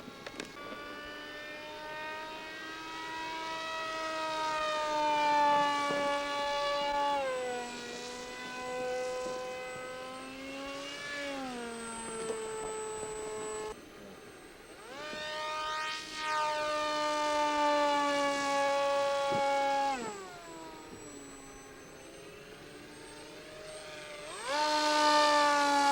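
Wild Hawk radio-controlled model jet flying past overhead, its motor giving a steady high whine. The whine swells as the plane comes near and drops sharply in pitch as it passes, several times over.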